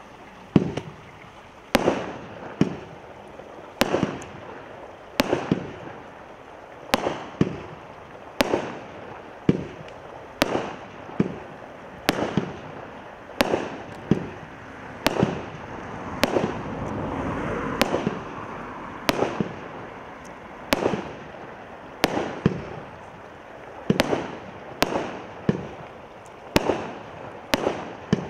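A 25-shot, 0.8-inch straight firework cake firing shot after shot, with a sharp report about once a second. A swell of hiss rises and falls about two-thirds of the way through.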